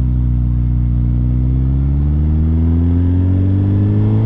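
Motorcycle engine running under way, the pitch level at first and then climbing steadily through the second half as the bike accelerates out of a curve.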